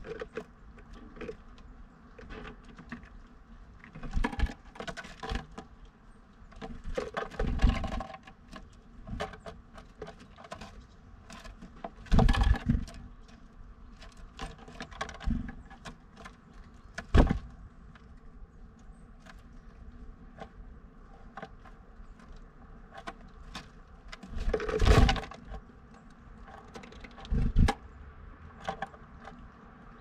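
Blue tit moving about a birdhouse close to the microphone: irregular pecking taps and scratches, with about half a dozen heavier thumps scattered through.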